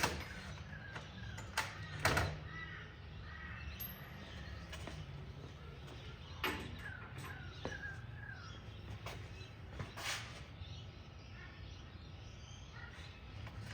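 Scattered clicks and knocks of sockets being handled in a Whitworth socket set case, a few sharp taps seconds apart, with birds calling in the background.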